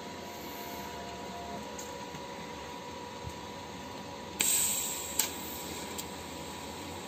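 Steady hiss of TIG welding equipment on a stainless-steel muffler repair. A sudden loud hissing burst comes about four and a half seconds in and fades within half a second, followed by a sharp click and a fainter one.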